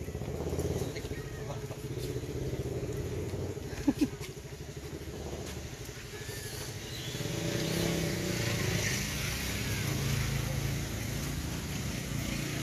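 An engine running steadily, with a sharp click about four seconds in.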